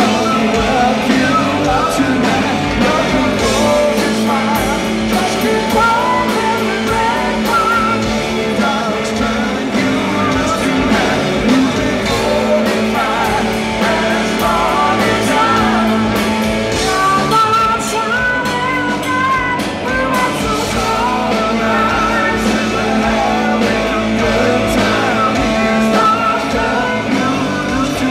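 Live rock band playing a song: electric guitar, electric bass and drums under a sung lead vocal, heard loud from the audience.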